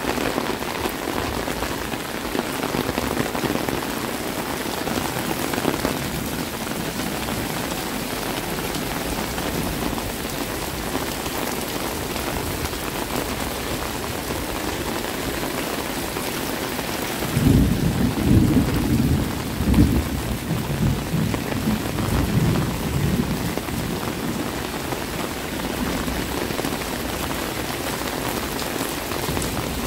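Heavy rain falling steadily. A little past halfway a low, uneven rumble rises over it for about five seconds, then fades back under the rain.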